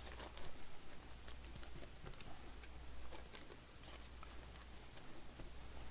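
Baseball cards being handled and put away: soft scattered taps, clicks and slides, faint, over a low steady hum.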